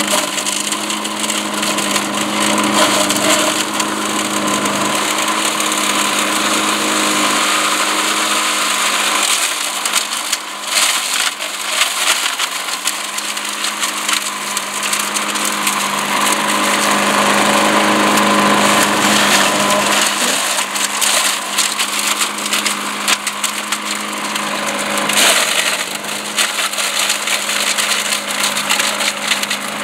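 Patriot Forester chipper-shredder's 10 hp Tecumseh engine running steadily while leafy branches are shredded, with constant crackling and snapping from the rotor. The engine note sags briefly near the middle.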